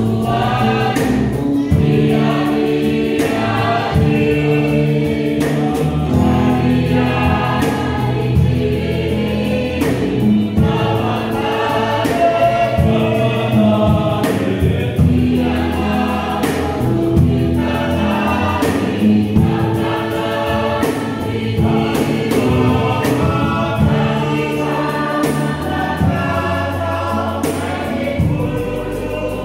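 Choir singing gospel music, full and continuous.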